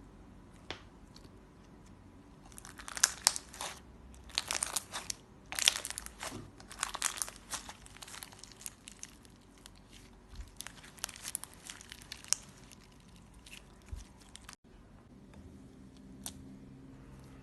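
Clear slime being squeezed and stretched by hand, crackling and popping in dense bursts, then thinning to a few scattered clicks near the end.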